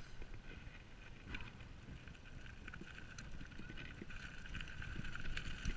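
Specialized Enduro Elite mountain bike descending a dirt trail at speed: tyres rolling, wind rumbling on the bike-mounted camera's microphone, and the bike knocking and rattling over bumps. A steady high buzz runs underneath and grows louder after about four seconds as the pace picks up.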